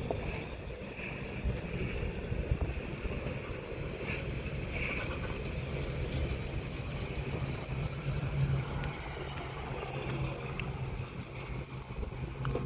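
Hi-rail pickup trucks running along the railroad track, a steady low engine hum with road-and-rail noise.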